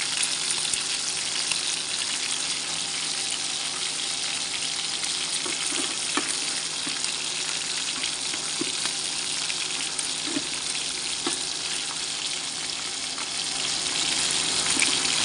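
Pork slices and cubes of pork fat frying in hot oil in a pan, the fat rendering into lard while the meat cooks: a steady sizzling hiss with occasional crackles.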